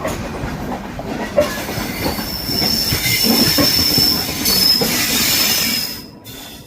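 Railway train wheels running over the track with knocking and rumbling, and a steady high-pitched wheel squeal from about two seconds in; the whole sound drops off sharply near the end.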